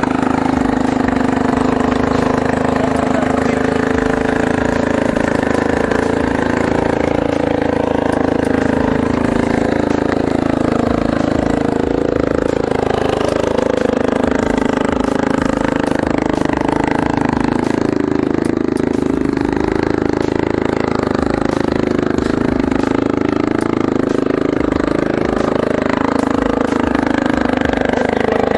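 Small 60cc engine of a Chinese kids' quad (ATV) running, its pitch rising and falling over and over as the throttle is opened and eased off.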